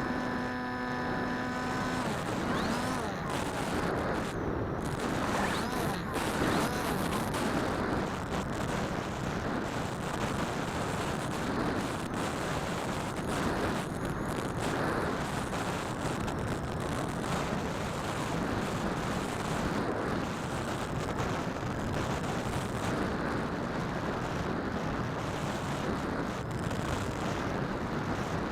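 Electric Phantom FPV model aircraft in flight, heard from a camera riding on board. A steady motor and propeller hum drops away about two seconds in, leaving mostly rushing wind noise on the microphone that swells and eases.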